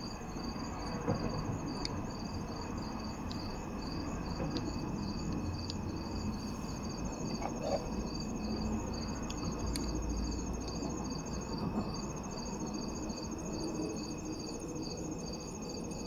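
Crickets chirping steadily: one in even pulses about two to three times a second, another in a continuous high trill. A few faint clicks and low handling noises sit underneath.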